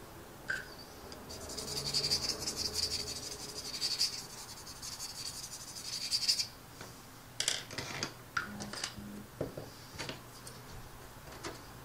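Small paintbrush scratching across the plastic tail fin of a model kit as decal-setting solution is brushed on: a dry, scratchy rasp for about five seconds. A few light clicks and taps of handling follow.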